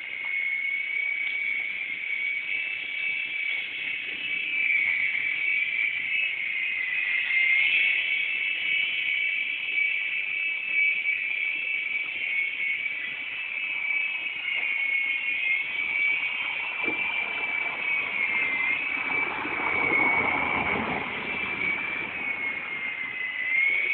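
Radio-controlled helicopter in flight, its motor and rotors making a steady high whine whose pitch wavers slightly as it manoeuvres. A swell of rushing noise rises and falls about three quarters of the way through.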